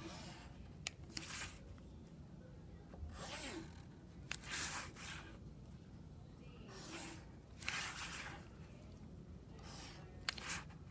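Black Sharpie marker drawn along a plastic ruler across paper: about eight short scratchy strokes, each under a second, with a few sharp clicks between them.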